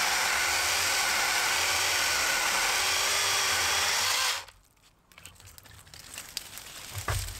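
Battery-powered mini chainsaw running steadily as it cuts into a small green-wood stump, stopping abruptly about four seconds in. Afterwards there is light crackling of twigs and brush as the cut piece is pulled away.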